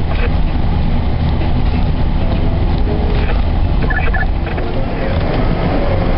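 Snowplow truck's engine running steadily with a low rumble, with scattered knocks and a brief high chirp about four seconds in.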